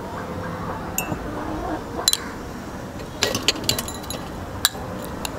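Metal spoon clinking against a glass bowl and small bowls on a steel plate while scooping ground paste: single clinks about one and two seconds in, a quick run of clinks a little past halfway, and one more near the end.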